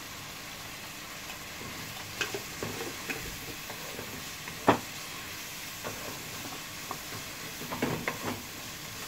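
Keema (minced meat) frying in a non-stick pan with a steady sizzle. A few light taps and clicks from the spoon and utensils come through, the sharpest a little under five seconds in and a small cluster near the end.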